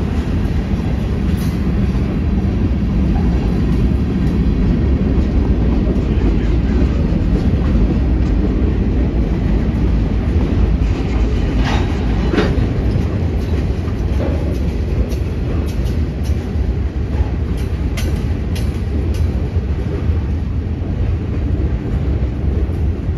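Freight train cars, autoracks and a covered hopper, rolling past: a steady loud rumble of steel wheels on rail, with a few sharp clacks about halfway through and again a little later.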